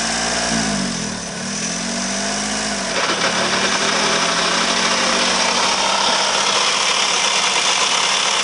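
Vehicle engine idling, its pitch dipping briefly about a second in and recovering. About three seconds in, a louder, rougher mechanical noise sets in and holds steady over the idle: the abnormal noise that the owner suspects comes from the clutch.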